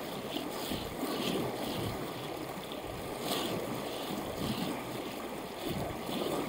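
Fast river current rushing steadily over a shallow stony bed, with wind buffeting the microphone.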